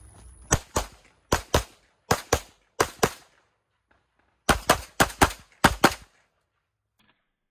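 Pistol fire: four quick pairs of shots about three-quarters of a second apart, a pause of over a second, then a faster string of about seven shots that stops about six seconds in.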